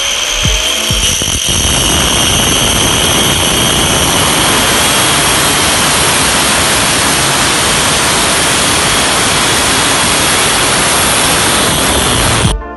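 Angle grinder with an abrasive cut-off wheel cutting through a polished steel tube: a steady, loud grinding noise with a high motor whine. It stops abruptly just before the end.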